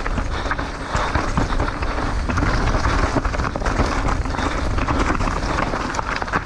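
Downhill mountain bike riding fast over rough trail: tyres running over dirt and rocks with a constant rattle and clatter of the bike, and wind buffeting the microphone as a steady low rumble.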